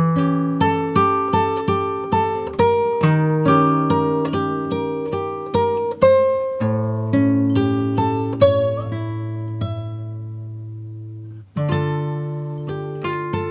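Background music: an acoustic guitar picking single notes at about two a second, with one chord left ringing for several seconds before the picking starts again near the end.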